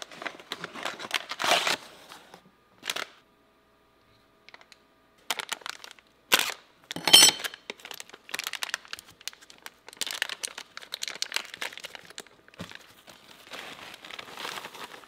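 Hands opening a cardboard box of breading mix, tearing its paper pouch and handling a plastic zipper bag: crinkling and rustling in short spurts, with a near-silent pause about three seconds in and two sharp rips around six and seven seconds in.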